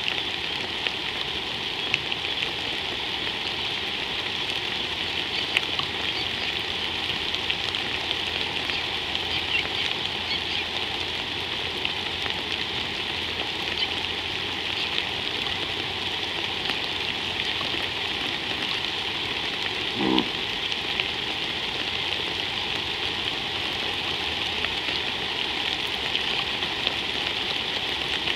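Steady rain falling on the river and banks, an even hiss with many small drop ticks. About two-thirds of the way through comes one brief pitched sound.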